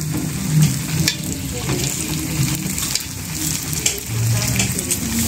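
Batter-coated Korean corn dogs deep-frying in hot oil: a steady sizzle with scattered crackling pops.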